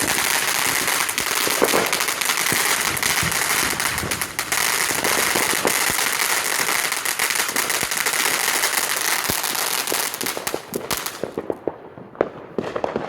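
Consumer fireworks crackling and hissing continuously, a dense run of rapid pops that thins to scattered crackles about eleven seconds in and dies away.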